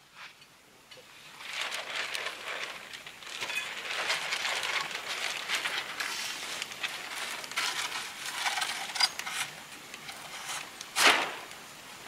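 Rustling and crackling with many small clicks, beginning about a second in, with a short louder rustle near the end.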